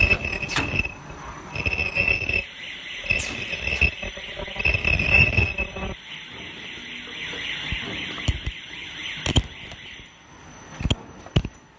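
An electronic alarm buzzer beeping about once a second over the mechanical clatter of an automatic non-woven bag punching machine. The beeping and clatter stop about six seconds in, leaving a steady hiss and a few sharp clicks.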